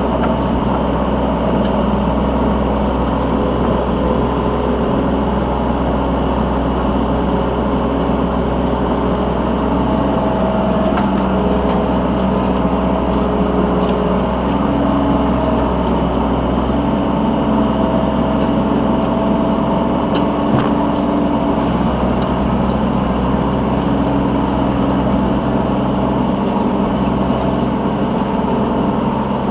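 Yanmar B3Σ 3-tonne mini excavator's diesel engine running steadily while it digs and loads, heard from the operator's seat, with tones that come and go and shift in pitch every few seconds as the machine works.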